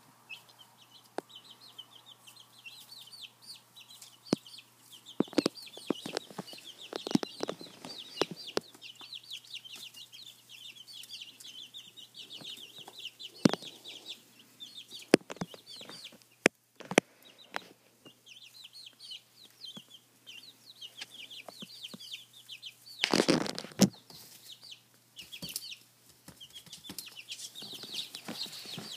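A brood of chicks about three and a half weeks old peeping almost without pause, in short, high, falling chirps. Scattered sharp clicks and taps run under the peeping, and there is one louder noisy burst about 23 seconds in.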